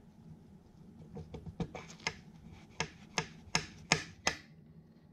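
Sharp metal clicks and taps, about a dozen, as valve lifters are handled and set into their bores in the cast-iron block of a 1942 Farmall H engine. They grow louder toward the end and stop shortly after four seconds in.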